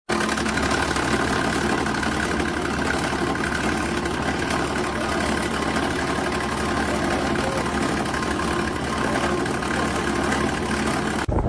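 Portable air conditioner running: a steady fan rush with an even hum from the compressor.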